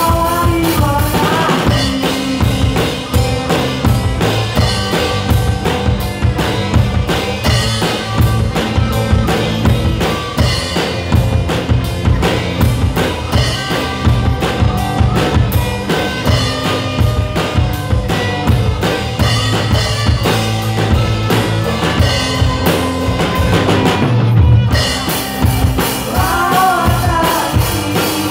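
A live rock band plays an instrumental passage, the drum kit keeping a steady beat under electric guitar. The cymbals drop out for a moment near the end, and then the band carries on.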